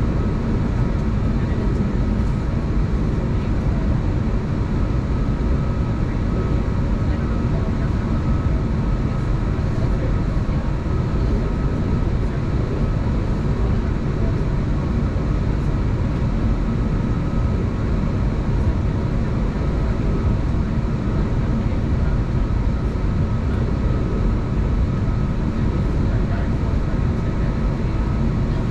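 Steady cabin noise inside an Airbus A321neo on the ground before takeoff: the engines at idle and the cabin air running evenly, with a faint steady whine.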